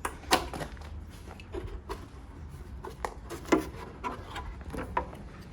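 Scattered light clicks and knocks as small parts are worked loose from a vehicle's bumper, the sharpest about a third of a second in and again past the middle, over a low hum.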